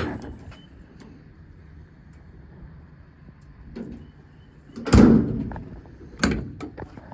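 Metal clunks and latch clacks, as of a service-body compartment door being opened and shut: a light knock, then a loud clunk about five seconds in, then two quicker knocks. A faint steady low hum lies underneath.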